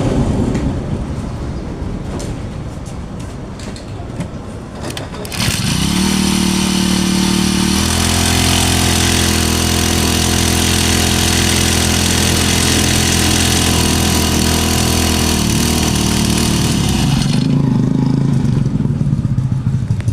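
Small four-stroke engine of a Matsumoto Platinum 20-litre power sprayer running unevenly at idle, then throttled up about five seconds in and again about eight seconds in, held at a steady high speed, and dropped back to idle near the end.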